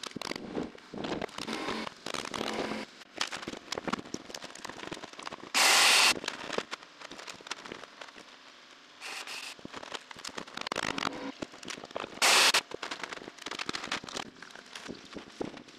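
Construction work noise: a dense, rapid clatter of knocks and clicks, with two brief loud bursts of noise about six and twelve seconds in.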